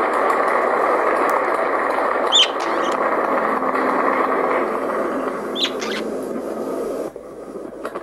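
Sustained applause through a tablet's speaker that cuts off abruptly about seven seconds in. A budgerigar gives two short chirps over it, a few seconds apart.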